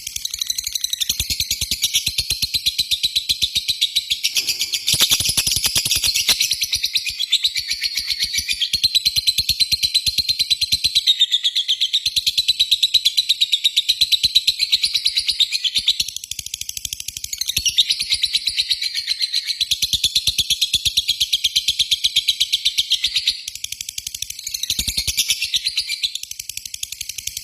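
Lovebird chattering long and fast (ngekek): a dense, almost unbroken run of high, sharp chirps, easing off briefly about 11, 16 and 24 seconds in.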